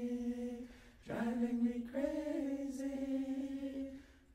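A male voice chanting long held notes, each sliding up in pitch at the start. One phrase fades out just under a second in, and the next begins about a second in and holds until shortly before the end.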